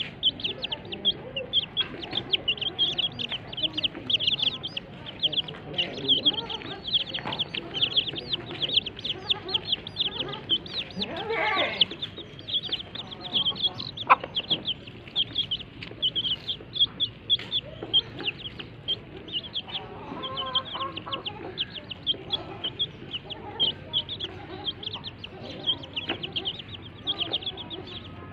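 A brood of chicks peeping constantly in rapid high chirps while they feed, with a mother hen clucking low underneath. One louder, drawn-out call comes about halfway through.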